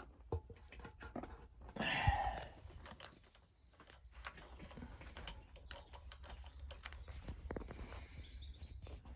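Faint bird chirps over scattered small clicks, with one short noisy scrape about two seconds in as the loudest moment. No engine is heard running.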